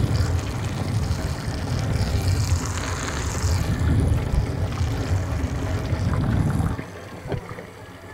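Tap water running over a clear plastic waterproof phone pouch, heard from the phone's microphone sealed inside it: a loud, steady rush with a strong low rumble. It stops abruptly about seven seconds in, leaving a few faint clicks.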